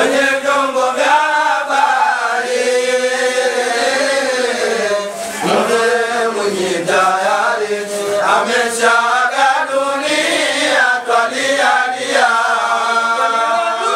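A man chanting a Swahili dhikr lament into a microphone, in long drawn-out melodic phrases with short breaks between them.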